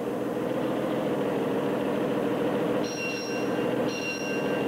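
Engine of an early Oakland touring car running as it drives in slowly. Near the end come two short high ringing tones about a second apart.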